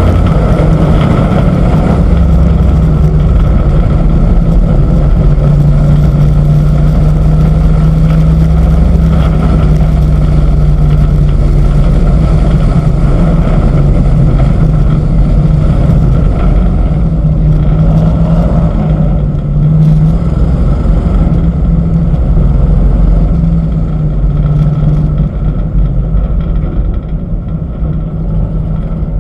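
Race truck's engine running loud and steady at speed, heard from its hood with a constant rush of air over the microphone; it eases off and grows quieter over the last few seconds as the truck slows.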